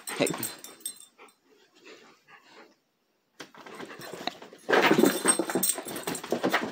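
Golden retriever playing rough right at the phone, breathing and making mouth noises close to the microphone, with its fur rubbing against it. After a brief burst at the start and a near-silent gap, the sound turns loud and dense from about five seconds in.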